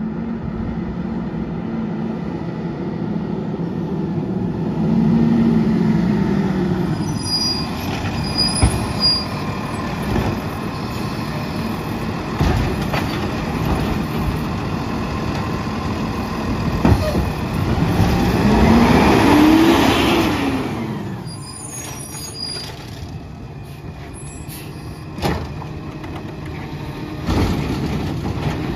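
Autocar ACX side-loader garbage truck's engine running as the truck pulls up and stops. The engine revs up and back down twice, the second time longer and louder, about two-thirds of the way through. Short high squeals and several sharp knocks come over it.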